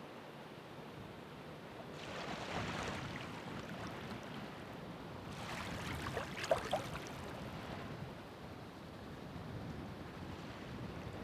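Ocean waves breaking and washing up the shore over a steady low surf: one wave surges in about two seconds in, and a louder one around the middle, with a few sharp splashes as it breaks.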